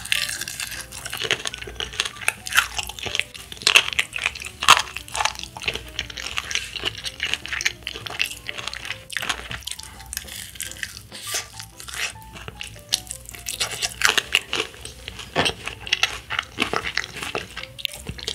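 Close-up crunching and chewing of crispy-coated fried chicken, the crackly breading breaking with many irregular bites and chews. Soft background music plays underneath.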